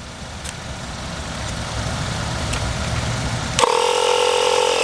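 A low rumble, then about three and a half seconds in a click and the 2013 Chevrolet Malibu's 12-volt tire inflator compressor starts up, settling quickly into a steady buzzing hum as it pumps air into a low tire.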